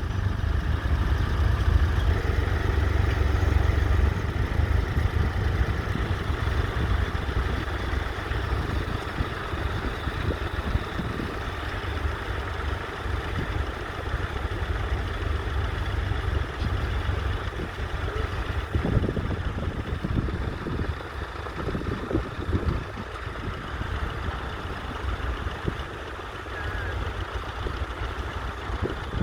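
Ford 4000 tractor's engine running steadily, loudest in the first few seconds and a little quieter afterwards.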